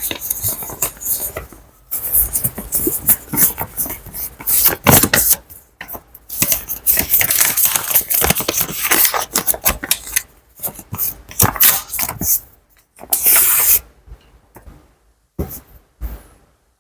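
Paper banknotes handled close up: crisp rustling, flicking and riffling in quick runs with short breaks, dropping to a few isolated rustles in the last few seconds.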